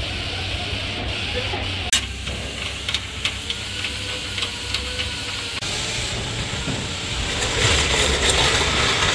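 Workshop room noise: a steady low hum and hiss, with a sharp click about two seconds in and a run of light ticks after it. The hiss grows louder near the end.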